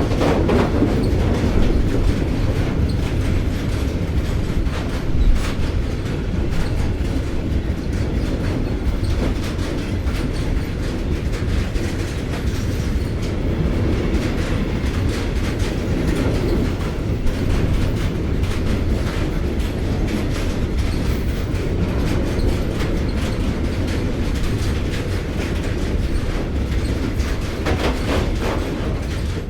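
Train passing at close range: a steady rumble of railcars with the clickety-clack of wheels over rail joints, fading away at the very end.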